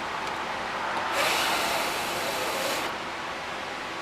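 A burst of hissing noise, starting about a second in and lasting just under two seconds, then cutting off, with a few faint clicks around it.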